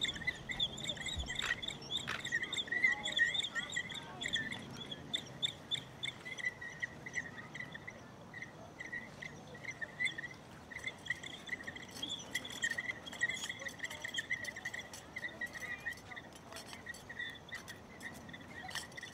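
Insects, crickets or katydids, chirping in a steady pulsing chorus of high chirps.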